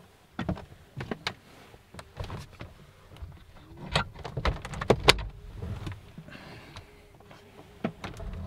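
Irregular knocks and clicks over a low rumble, the loudest two sharp clacks coming about five seconds in.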